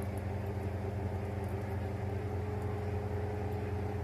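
Steady low hum from a running motor or appliance, holding one even pitch.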